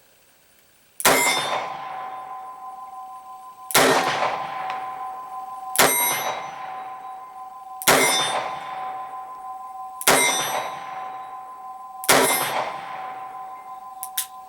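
Six shots from a 1973 Colt Detective Special .38 Special snub-nose revolver, fired about two seconds apart. Each shot is followed by a long metallic ring from the steel target. A light click comes near the end.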